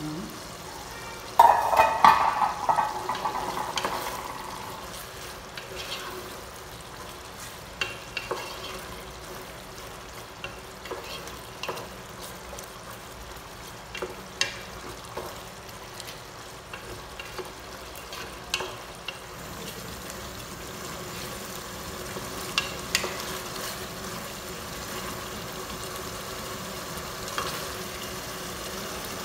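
Wooden spoon stirring beef simmering in dark sauce in an aluminium stockpot, with a steady sizzle and the spoon knocking against the pot every few seconds. The stirring is loudest from about a second in for a few seconds.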